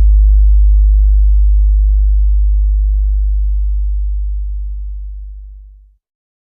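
A deep electronic sub-bass tone, a single long held bass note with no other sound, slowly fading and cutting off near the end.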